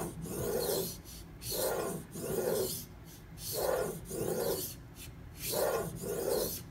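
Steel chef's knife edge rubbed back and forth on the 1000-grit side of a Suehiro SKG-27 water stone: rhythmic rasping strokes, about one a second, coming in pairs.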